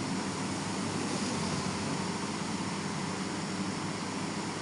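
Steady background hiss with a faint low hum, with no distinct events: the room and microphone noise between spoken lines.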